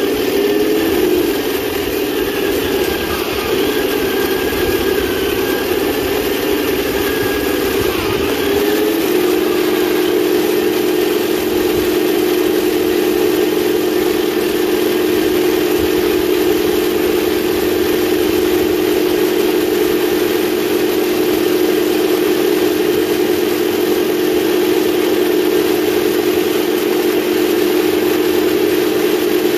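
1/16 scale RC tank driving, its electronic engine sound and drive-motor whine going steadily. The pitch wavers for the first nine seconds or so, then holds one steady tone.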